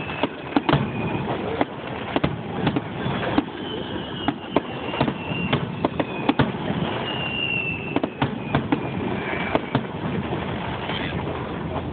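Fireworks display: shell bursts bang at irregular intervals, several a second at times, over a steady background hiss. A few faint whistling tones drift slightly downward in pitch between the bangs.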